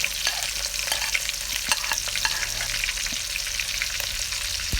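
Chopped onion sizzling and crackling in hot palm oil in a pot, with scattered clicks as it is stirred.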